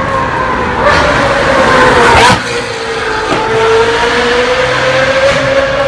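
Ferrari 458 Italia's flat-plane V8 with an Fi Exhaust, howling at high revs as the car passes close about two seconds in, its pitch dropping sharply as it goes by, then pulling away with the engine note rising again.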